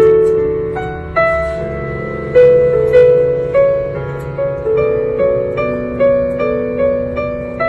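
Solo piano played on an electronic keyboard: a slow piece of chords and melody notes, a new note or chord struck about every half second to a second, each ringing and fading before the next.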